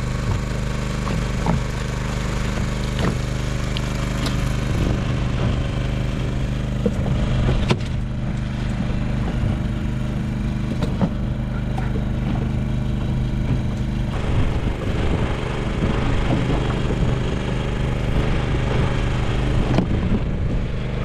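A boat engine running steadily with an even low hum, with scattered knocks and clicks from handling line and fish aboard.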